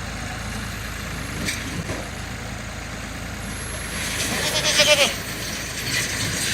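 A goat bleats once, a loud wavering call about four seconds in that lasts under a second, over steady low background noise.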